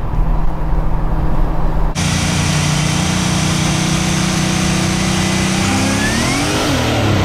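Supercharged LS V8 in a Camaro IROC-Z running on the road. There is a cut about two seconds in. After it the engine holds a steady note with road and wind hiss on top, then revs up and drops back near the end.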